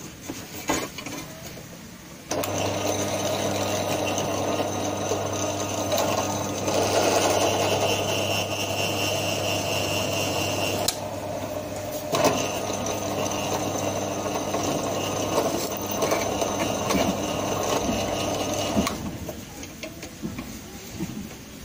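Bench drill press running, its freshly changed bit boring through a steel knife blank held in a machine vise. The motor hum starts abruptly about two seconds in and stops near the end, with a high whine from the cutting through the middle.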